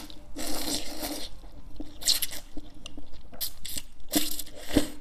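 Ramen noodles being slurped and chewed: several wet, hissing slurps in a row, the longest about a second in, with wet mouth sounds between them.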